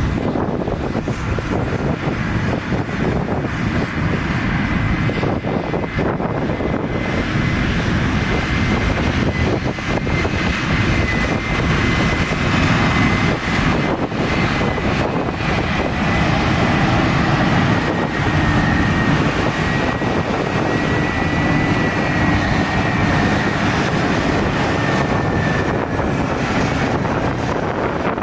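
Heavy earthmoving machinery running steadily under load, a deep rumble with a thin high whine that slowly drops in pitch, and wind buffeting the microphone.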